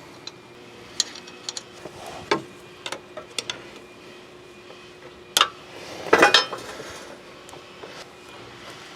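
Metal parts clinking and knocking as a drive shaft is turned and lined up with the power transfer unit's flange: scattered light clicks, with a louder clatter about five seconds in and another about a second later.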